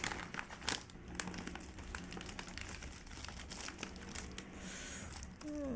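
Plastic or paper chocolate packaging being handled and opened, crinkling and crackling in quick, irregular clicks.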